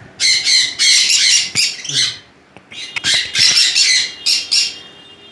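Conures squawking: rapid harsh shrieks in two runs, with a short lull between them.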